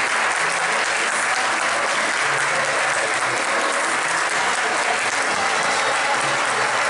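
Audience applauding, a steady sustained clapping throughout.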